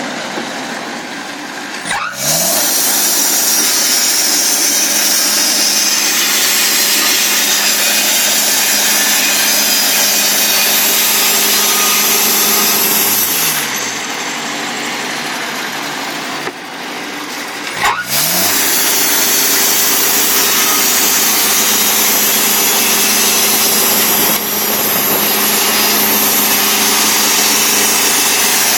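Portable sawmill's engine revving up sharply about two seconds in and running at full speed, the saw adding a loud, even rushing noise. About halfway through it drops back to a lower idle for a few seconds, then revs up again and runs at speed to the end.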